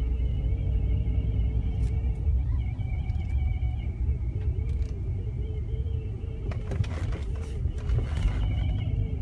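BMW E46 driving with a steady low road rumble and a high, wavering whine from the bottom rear of the car. The whine is clear for the first few seconds, fades, and returns near the end, with a few knocks in between. It is an intermittent fault noise that starts when the car hits bumps while moving and stops only when the car is fully stopped; its cause is unknown.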